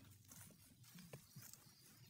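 Near silence with a few faint, irregular soft taps, like footsteps on grass.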